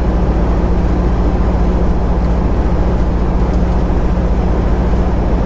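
Semi-truck's diesel engine droning steadily at highway speed, heard from inside the cab, with an even rush of road and tyre noise.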